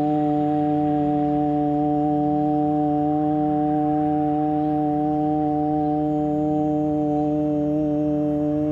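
Background music for meditation: one low drone note held steady and unchanging, with an organ-like sound.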